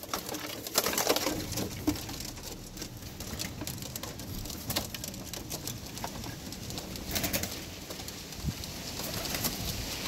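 Birmingham Roller pigeons cooing while they peck feed off a wooden tray, with many scattered sharp taps of beaks on the wood.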